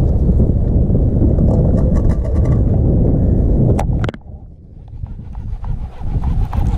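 Loud, steady low rumble of background noise on a fishing boat's deck. A sharp click about four seconds in, after which the rumble drops away abruptly for a second or two and then builds back up.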